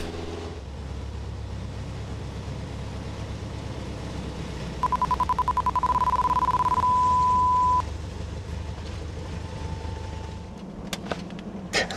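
Light aircraft engine and propeller droning steadily over the cockpit intercom. About five seconds in, an angle-of-attack warning tone beeps rapidly, then holds steady for about a second before cutting off: the warning that the wing is nearing the stall at high angle of attack.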